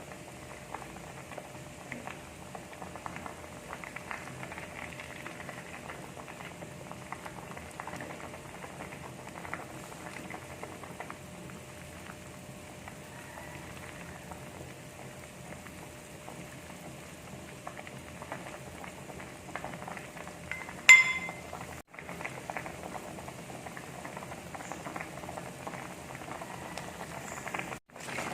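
Pot of tilapia and vegetable broth bubbling at a steady boil, with a continual crackle of small pops. About three-quarters of the way through there is a single sharp clink that rings briefly.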